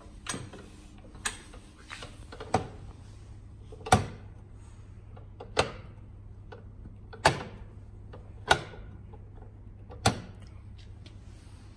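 Sharp clicks and knocks of metal fittings being set by hand on a Sysform D-50P paper drilling machine: the paper-table side guides and the square-bar gauge being slid and knocked into position. About eight knocks come a second or so apart over a steady low hum.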